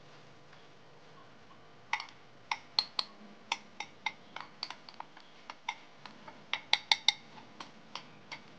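A metal spoon clicking and scraping against a bowl as wheat flour is knocked out into a blender jug: sharp, irregular clicks, a couple a second, starting about two seconds in.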